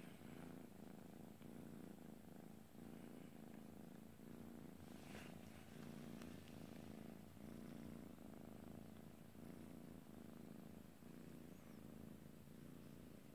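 Curly-coated cat purring quietly and steadily while its chin and cheeks are rubbed, the purr swelling and easing with each breath: a contented cat.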